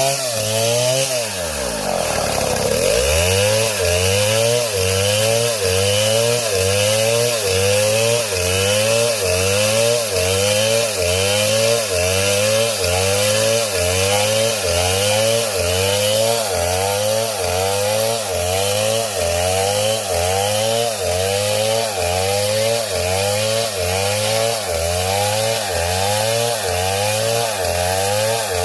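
Chainsaw engine running at high revs while cutting wood. Its pitch drops sharply and recovers about two seconds in, then wavers up and down in a regular rhythm as the chain works through the wood.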